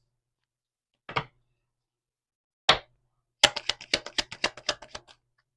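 Tarot cards being handled and shuffled: two single snaps of the cards, then a quick run of about a dozen card slaps in under two seconds.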